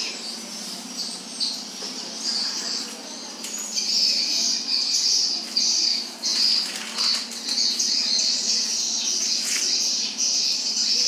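High-pitched chirping of small animals, coming in long stretches broken by short pauses.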